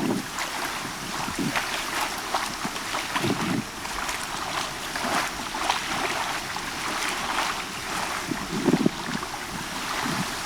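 Bay water lapping and splashing, a steady wash of small waves with many little splashes, with wind gusting on the microphone now and then in a few dull thumps.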